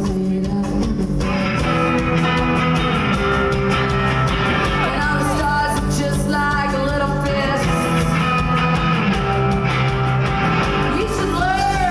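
Live rock band playing at full volume: distorted electric guitar, electric bass and drums.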